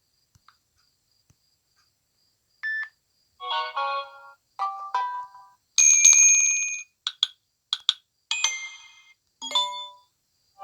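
Samsung Galaxy J7 Crown stock notification tones played one after another: after about two and a half seconds of near silence, a string of short chimes, beeps and blips, each under a second long.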